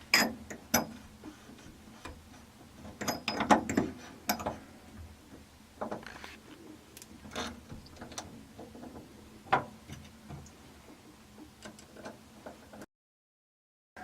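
Small metal faucet parts clicking, knocking and scraping as a two-handled faucet is reassembled and tightened, in scattered separate clicks with a busier stretch of handling about three seconds in. It cuts off abruptly near the end.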